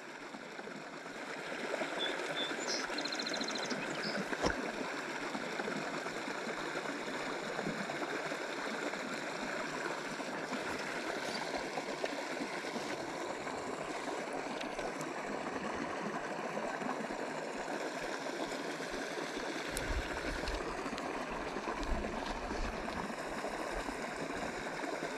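Steady rush of a small creek's flowing water, fading in over the first second or two. A low rumble joins it near the end.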